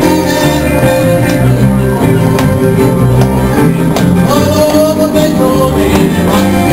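Upbeat rock and roll music played by a small band live, with guitars and a steady beat.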